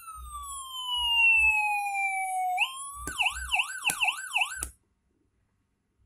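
Electronic siren from a Landun siren IC in a push-button siren switch box: a wail that falls slowly in pitch for about two and a half seconds, then a fast yelp rising and falling about three times a second, cutting off suddenly near the end.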